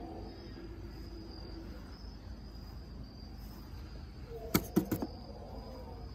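Crickets chirping steadily in a high, even drone. About four and a half seconds in come three sharp clicks in quick succession.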